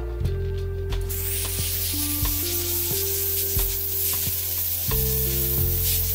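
Small pen-style DIY sandblaster blasting baking soda with compressed air: a loud, steady hiss that starts about a second in, with background music underneath.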